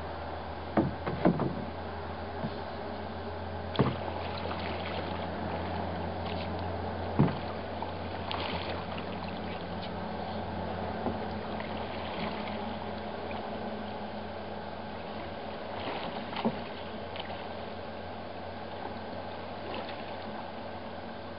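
Small wooden cedar strip canoe being paddled: paddle strokes in the water over a steady low background, with a few sharp knocks that are loudest in the first several seconds.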